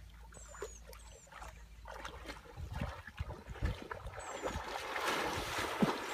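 Calves splashing as they wade and bound through shallow creek water, the splashing growing louder and more continuous near the end.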